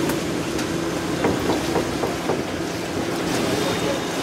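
Vaporetto water bus under way: its engine runs with a steady hum under the rush of water and wind.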